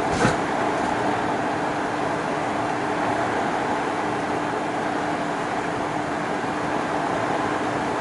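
Steady outdoor rushing noise with a faint even hum running under it, and a single short click about a quarter second in.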